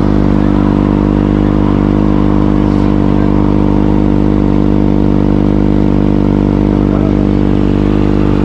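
Kawasaki ZX sportbike's inline-four engine idling steadily at close range, its pitch unchanged throughout.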